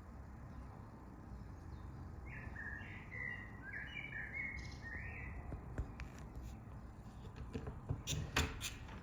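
Song thrush singing a short phrase of several brief notes, starting about two seconds in and lasting about three seconds, over a low background rumble. A few sharp clicks sound near the end.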